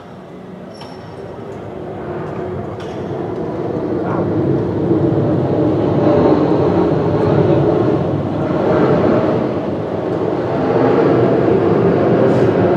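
Jet engine noise from an Airbus A320 airliner on its landing rollout, growing louder over the first five seconds and then staying loud and steady.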